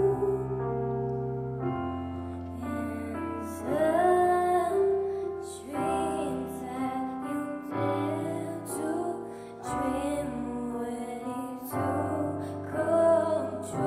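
A female vocalist singing into a microphone over piano accompaniment, the chords changing about every two seconds.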